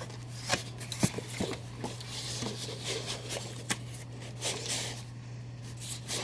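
Cardboard box and styrofoam packing being handled: scattered clicks, scrapes and rustles as the box's end flap is opened and the inner packing is pulled out, over a steady low hum.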